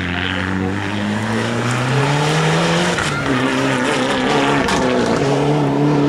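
Mitsubishi Lancer Evolution rally car's turbocharged four-cylinder engine revving hard under acceleration, its pitch rising, dropping sharply about three seconds in, then climbing again and holding.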